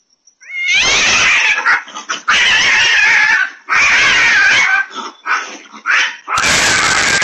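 Two cats fighting: loud, harsh screaming yowls in long bursts of about a second each, broken by short pauses, heard through a doorbell camera's microphone.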